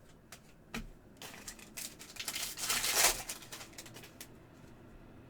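Foil wrapper of a 2024 Panini Prizm Football hobby pack crinkling as it is torn open and handled, loudest a little past the middle, with a few sharp clicks as the cards are handled.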